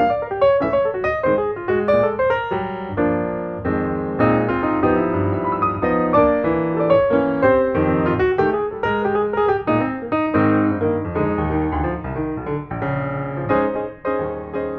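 Background piano music: a flowing melody of many quick notes over chords.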